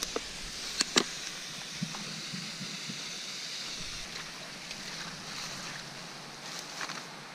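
Steady rush of running water, with two short clicks about a second in.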